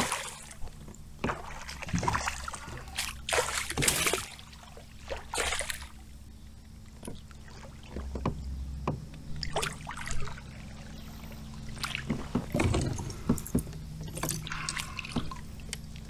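Hooked northern pike thrashing and splashing at the water's surface beside a kayak, in irregular bursts, with scattered knocks and rattles of fishing gear against the boat.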